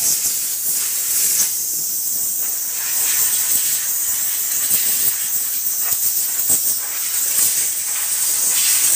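Compressed nitrogen hissing from a hose nozzle, blown into an amplifier's chassis and circuit boards to dry out the water left from washing them.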